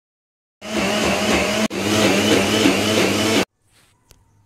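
Electric mixer grinder running at full speed, grinding batter in its jar. It starts abruptly just over half a second in, breaks for an instant, and cuts off sharply about three and a half seconds in.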